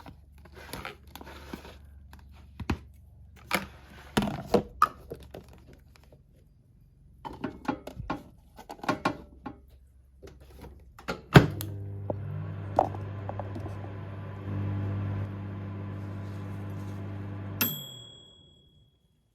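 Clicks and knocks of a dish and microwave oven being handled, then a sharp thunk about eleven seconds in as the microwave door shuts. The microwave oven runs with a steady hum for about six seconds and stops with a single short beep.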